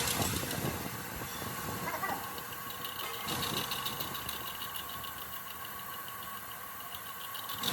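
A machine's motor running steadily and faintly, a low hum with a few steady tones and some hiss.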